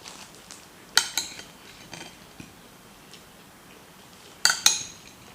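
A spoon clinking against a dish: a couple of sharp clinks about a second in, a lighter one a second later, and a loud pair near the end.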